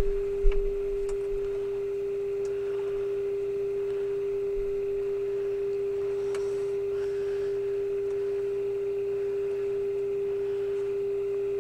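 Steady, pure test tone from a Zenith AM radio's speaker. It is the audio demodulated from a 455 kHz IF signal fed into the antenna, heard while the IF transformer slugs are tuned for the loudest output. There is a light click about half a second in.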